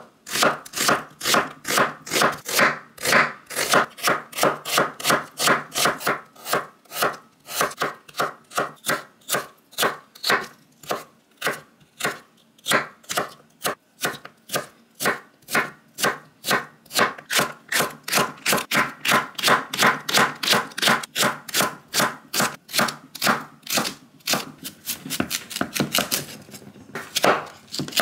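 Chef's knife slicing onion and potato into thin strips on a wooden cutting board, each cut ending in a knock of the blade on the board. The strokes come in a steady rhythm of about three a second, a little less even near the end.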